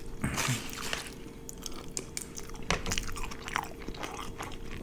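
Close-miked chewing and biting of food, with irregular crunches and small clicks.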